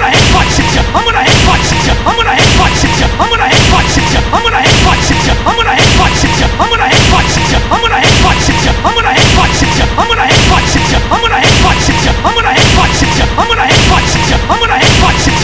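Video-game fight sound effects on a loop: a heavy slam impact with a crash and whoosh, repeating evenly about twice a second over music.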